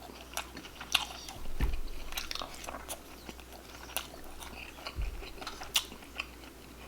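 Close-miked chewing and biting of a person eating, with scattered short crunches and mouth clicks and two dull low thumps, about a second and a half in and about five seconds in.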